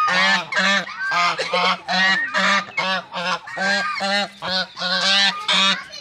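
White domestic geese honking in a loud, overlapping string of calls, two or three a second.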